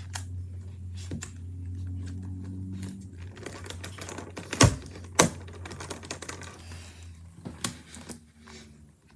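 Plastic Rubik's cube pieces clicking and knocking as they are handled and pressed back into the cube, with two sharp snaps about halfway through. A low steady hum runs underneath.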